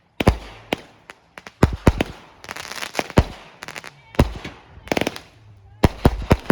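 Consumer fireworks going off in a rapid, irregular string of loud bangs, several in quick succession at times, with crackling between the reports.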